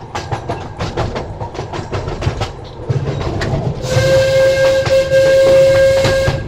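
Miniature railway train rolling along with its wheels clicking over the rail joints, then a whistle sounding one steady blast of about two and a half seconds, from a little past halfway to near the end.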